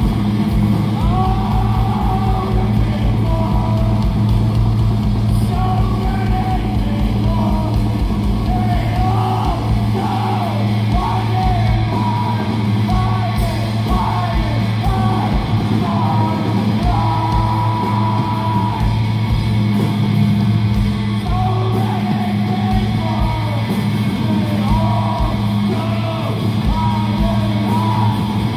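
A live rock band playing: electric guitars, bass guitar and a drum kit, with a singer's vocals over the top.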